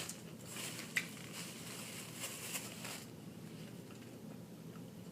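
Close-miked chewing of fried chicken drumsticks: faint crackly eating sounds, with a sharper click about a second in.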